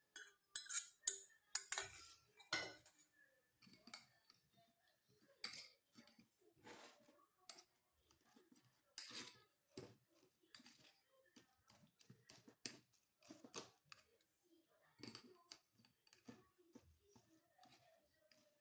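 Light, irregular clicks and scrapes of a kitchen utensil against a strainer and bowl as grated red onion is pressed to strain out its juice, with louder clinks in the first few seconds.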